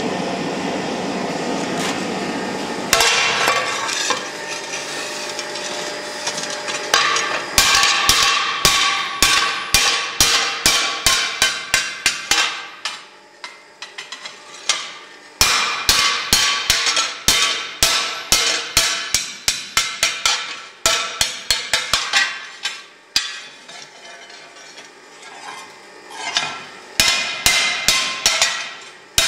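Blacksmith's hand hammer striking a hot hoe blade on an anvil in quick runs of ringing blows, about three a second, with short pauses between runs. A steady rush from the forge fire fills the first few seconds before the hammering starts.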